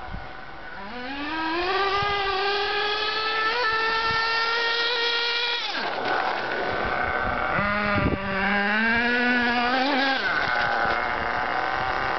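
HPI Trophy 3.5 nitro RC buggy engine revving up to a high, steady whine, then falling in pitch about six seconds in. It revs up again about eight seconds in and falls off near ten seconds.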